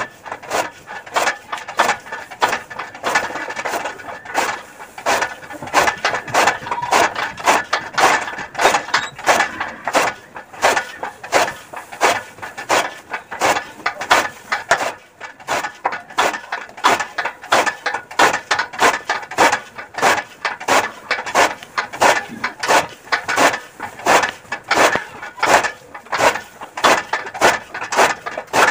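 Hand-cranked chaff cutter chopping green fodder: an even run of sharp chops, about three a second, as the blades on the turning flywheel slice the fed grass, with a short pause about halfway.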